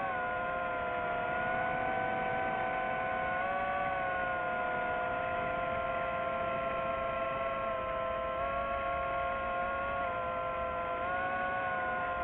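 FPV quadcopter's motors and propellers humming steadily in flight: several close tones that shift slightly in pitch as the throttle changes, around three seconds in and again near the end.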